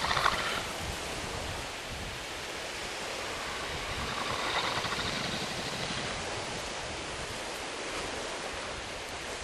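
Steady noise of sea surf and wind on a beach, swelling briefly at the start and again around four to five seconds in.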